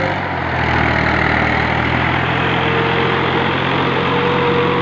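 Fiat 480 tractor's diesel engine running steadily under load as it drags a wooden plank leveller over ploughed soil.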